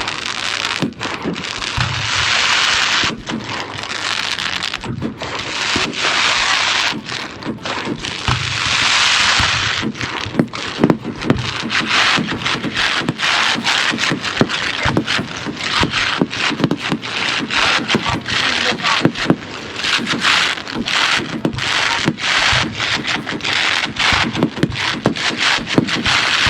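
Fireworks display going off, with many sharp bangs and pops in quick succession and bursts of hissing crackle that last a second or two at a time.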